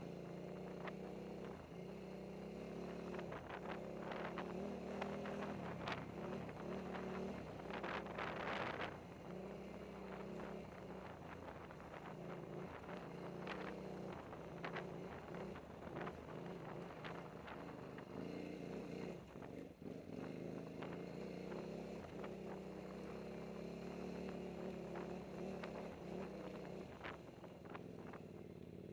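KTM 950 Super Enduro's V-twin engine running under load on a slow trail climb, its pitch shifting up and down. Scattered clicks and knocks come through over it, and about eight seconds in there is a brief rush of noise.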